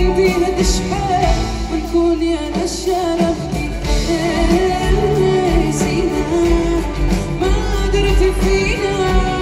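Live concert music from an orchestra with strings, saxophones, keyboard and drums, with a wavering melody line over a steady low beat.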